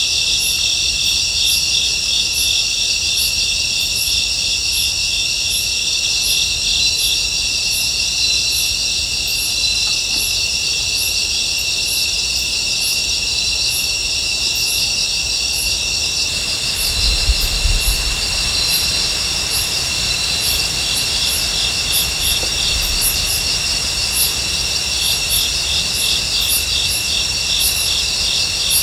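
Dense night chorus of crickets and other insects: a steady high trilling with a sharp chirp repeating about once or twice a second. A little past halfway, a low rumble with a couple of soft thumps comes up underneath.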